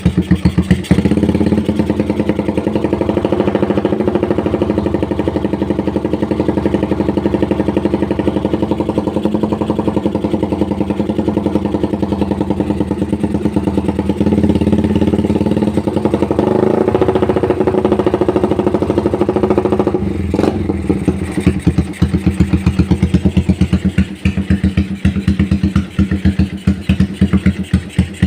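Motorcycle with a loud open (knalpot bacor) exhaust running, swelling in revs twice, then settling about two-thirds of the way in to an uneven, pulsing idle. The exhaust header neck is what the owner says no longer sounds good.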